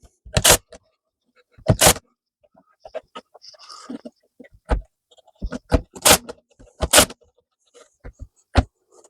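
A series of sharp knocks on wood, about six loud strikes spaced irregularly with lighter taps between them, as trim strips are fixed onto the roof of a wooden bird box.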